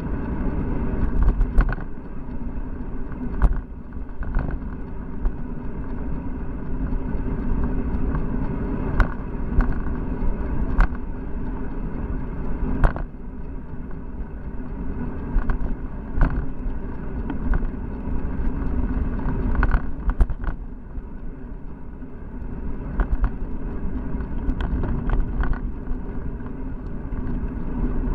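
Bicycle riding along a paved road, heard through a handlebar-mounted action camera: a steady low rumble of wind and road noise, with scattered sharp clicks and knocks every second or two.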